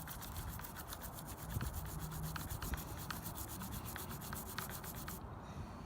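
Hand scrubbing of the metal sealing faces of the A/C compressor's line ports, cleaning off grime so the new O-rings can seal. Rapid, even back-and-forth strokes, about eight a second, that stop about five seconds in.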